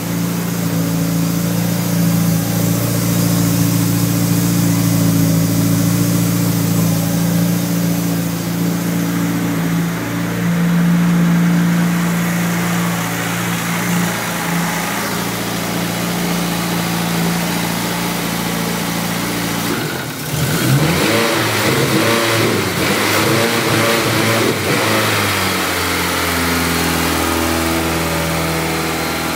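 Turbocharged Honda S2000 four-cylinder engine, swapped into a CRX and still un-tuned, idling steadily through its loud exhaust. About twenty seconds in, the throttle is blipped a few times, the revs rising and falling, before it settles back to idle.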